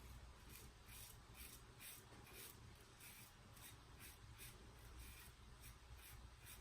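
Faint rasp of a razor scraping through lathered stubble, in short strokes about twice a second.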